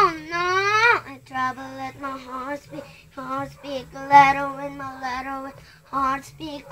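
A young girl singing unaccompanied in English, a string of short sung phrases opening with a loud sliding note.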